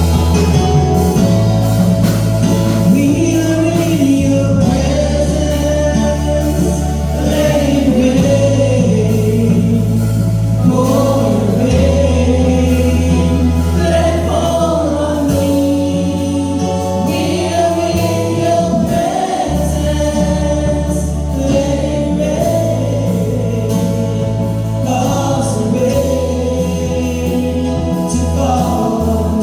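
A choir singing a gospel hymn over sustained bass chords that change every two seconds or so.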